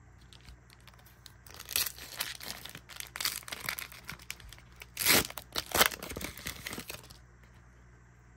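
Pokémon card booster pack wrapper crinkling and tearing as it is opened by hand. The crackling starts about a second and a half in, is loudest about five to six seconds in, and stops about seven seconds in.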